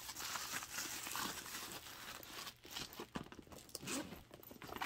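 Paper stuffing crinkling as it is handled in and around a handbag, with rustling and a few light knocks from the bag being moved.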